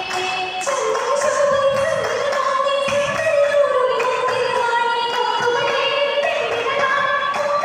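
Oppana song: a group of young female voices singing a Mappila song in unison through microphones, with the dancers' rhythmic hand claps keeping time.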